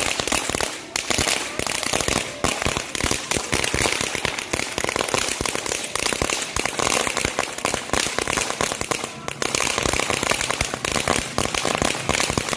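Ground fireworks fountain burning with a dense, continuous crackle of rapid small pops as it throws out sparks.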